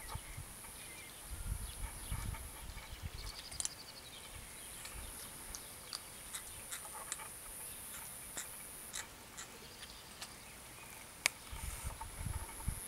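Outdoor ambience: a steady high-pitched hiss with scattered short ticks and chirps, and a few low thumps about two seconds in and again near the end.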